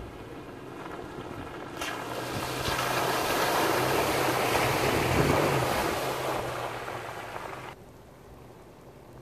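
SUV on large off-road tyres driving past through a muddy puddle: engine running under the hiss and slosh of tyres churning through mud and water. It swells to a peak as it passes, fades, then cuts off sharply near the end.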